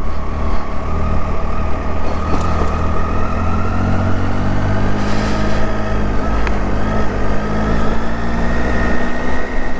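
Motorcycle engine running steadily while riding, with a thin whine that rises slowly in pitch as the bike gathers speed.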